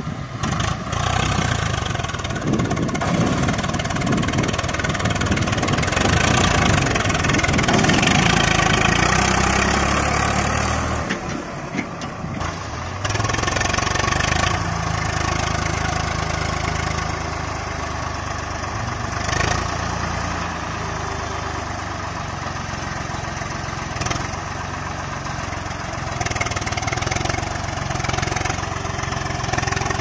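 Swaraj 744 FE tractor's three-cylinder diesel engine running under load, hauling a trolley full of sand, loudest for the first ten seconds. After a break the diesel settles to a steadier, lower-revving run.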